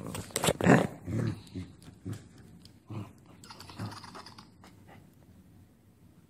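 Small terrier growling and grunting as it chews and worries a rubber toy, loudest in the first second and a half, then quieter and more broken up.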